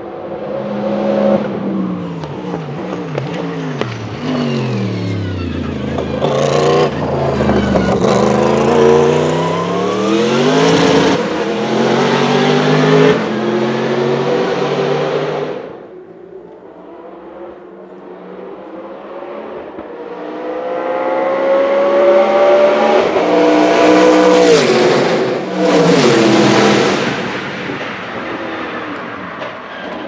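Sauber-Mercedes C11 Group C race car's 5.0-litre twin-turbo V8 on track: the engine note falls as it brakes and shifts down for a corner, then climbs in stepped upshifts as it accelerates away, cutting off suddenly. After a short quieter stretch, a race car engine builds up, passes by at speed near the end with its pitch dropping, and fades.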